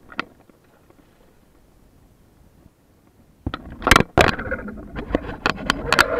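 A run of sharp knocks and scraping clatter on a sit-on-top fishing kayak, with hard objects striking and rubbing on the hull. One single click comes near the start, and the dense clatter begins about three and a half seconds in.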